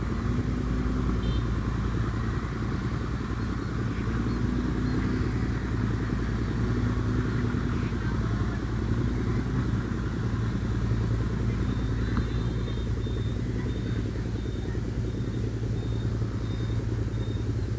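Wind buffeting the microphone in an open field: a steady low rumble. A faint high chirp repeats about twice a second through the last several seconds.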